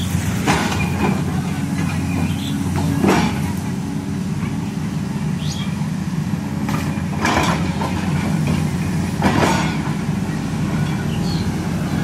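LiuGong 922D crawler excavator's diesel engine running steadily as it digs, with four brief scrapes of the bucket in the soil.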